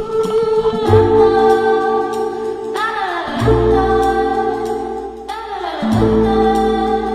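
Background music with singing: held chords over a bass line, the chord changing about every two and a half seconds.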